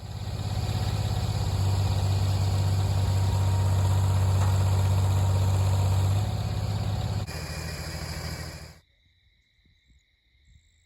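A motor engine running steadily with a strong low hum. The sound drops in level in two steps and then cuts off abruptly about nine seconds in, leaving faint steady high tones.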